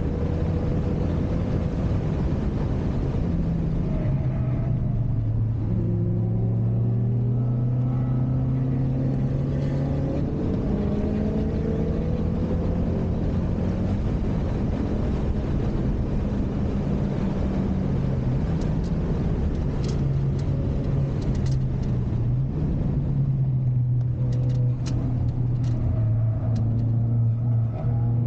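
Ford Focus RS engine heard from inside the cabin on track, pulling hard with its pitch repeatedly climbing and dropping through the gears over steady road and wind noise. A few sharp clicks come in the last third.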